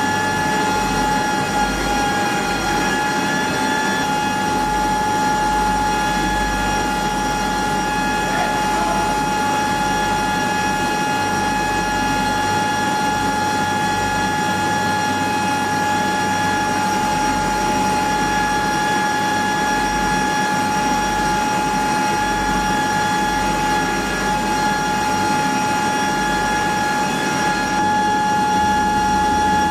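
Steady whine of a running aircraft turbine: a constant high tone over an even rumbling hiss that does not change.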